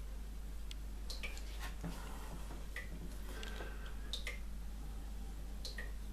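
Soft graphite pencil scratching on smooth drawing paper in short, irregular strokes, some with a brief falling squeak, over a steady low hum.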